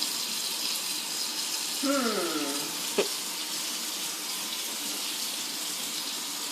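Steady running water, like a kitchen tap or sink. About two seconds in, a short falling pitched call cuts across it, and a second later there is one sharp click.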